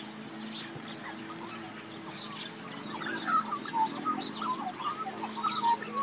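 Wild birds calling in the trees: a steady scatter of high chirps, joined about halfway through by louder, lower warbling notes that glide up and down. A faint steady low hum runs underneath.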